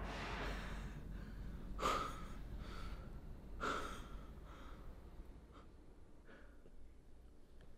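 The tail of a pistol shot fading out, then a few short, quiet breaths or exhales, the clearest about two and four seconds in, with fainter ones after.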